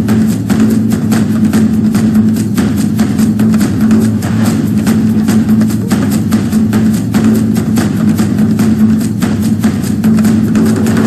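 Music with a fast, steady drumbeat over a held low note.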